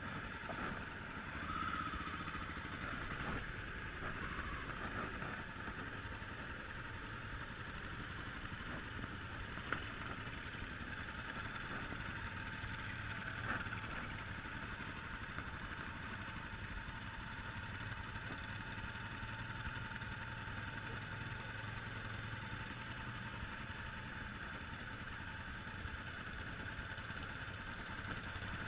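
A vehicle engine running steadily, with a couple of brief clicks about ten and fourteen seconds in.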